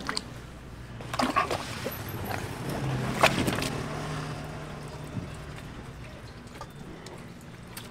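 Knife work and wet handling of ocean sunfish flesh and organs on a wet floor: a few knocks and clatters in the first half, the sharpest about three seconds in, with wet sloshing noise.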